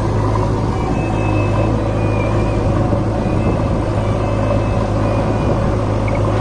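Diesel engine of a JCB backhoe loader running steadily while it works its backhoe arm to load soil, a constant low drone.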